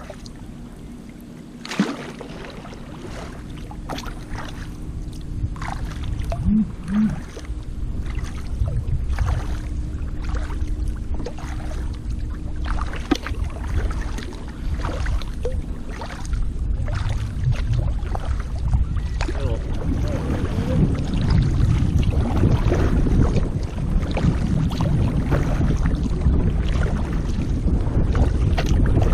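Sea kayak paddling: paddle strokes and water splashing and lapping against the kayak hull, picked up by a camera on the deck, with wind on the microphone. It grows louder about two-thirds of the way through.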